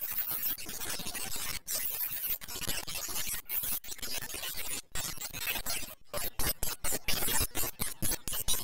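Heavily distorted, noisy edited audio that keeps cutting in and out, chopping rapidly about five times a second in the second half.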